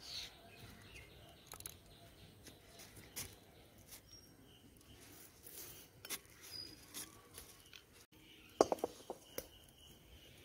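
Faint scraping and small taps of spice paste being wiped off a stone grinding slab into a steel bowl, with a few faint bird chirps. Near the end comes a quick run of sharp clicks, and a steady high insect chirring starts.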